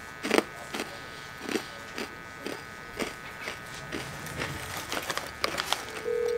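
A crunchy snack being chewed close by: irregular crisp crunches, about two a second, over a faint steady electrical hum. Near the end a steady beep-like tone starts.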